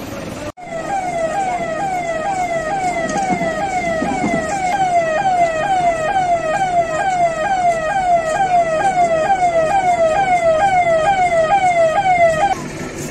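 Electronic police siren running in a fast repeating cycle of pitch sweeps, about two a second; it starts about half a second in and cuts off suddenly near the end.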